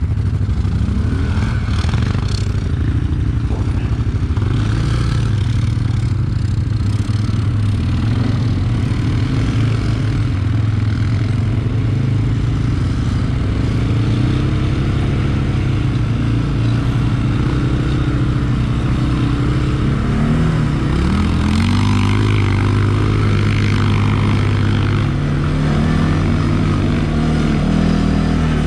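ATV engine running under way on a rough dirt track, its pitch rising and falling with the throttle. Near two-thirds of the way in, the pitch drops and then climbs again.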